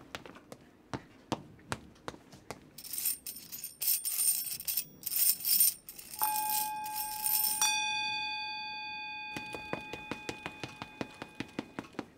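Sound effects: a run of light, evenly spaced clicks, about two or three a second, broken in the middle by a few seconds of high hissing noise. About six seconds in, a bell-like ding is struck, struck again a moment later, and rings on, fading slowly.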